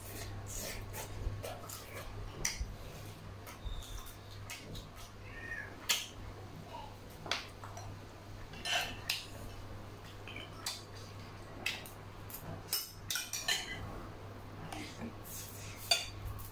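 Close-up eating sounds: chewing and lip-smacking on roast chicken and rice, with scattered sharp clicks of spoons and hands against ceramic bowls and a metal tray, the sharpest near the end. A steady low hum runs underneath.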